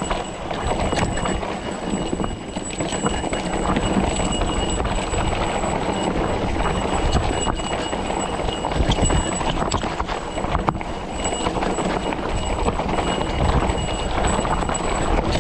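Motor-assisted bike ridden over a rough mountain trail: a steady rumble of tyres and wind, with irregular rattling knocks from the frame and parts over bumps.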